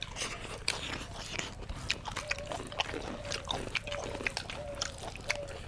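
People chewing and smacking their lips over mouthfuls of rice eaten by hand, a stream of small wet mouth clicks and smacks.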